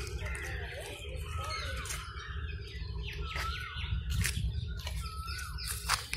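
Birds calling in a garden: short curving chirps repeated every second or so, with a few sharp clicks, over a low steady rumble.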